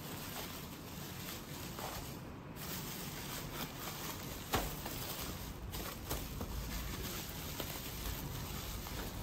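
Plastic bubble-wrap bag rustling and crinkling with many small ticks as a small cardboard box is slid into it and the bag is pressed flat around it, with one sharp click about halfway through.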